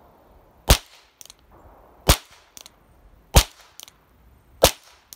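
Four shots from a Charter Arms Pathfinder .22LR revolver loaded with Aguila Super Colibri 20-grain rounds, a quiet low-noise load that the shooter believes runs on the primer alone. The shots come about one and a third seconds apart, each a sharp report followed about half a second later by a much fainter click.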